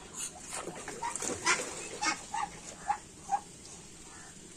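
Short splashes and plops in pond water as a Muscovy drake feeds with its bill at the surface, about six in a couple of seconds.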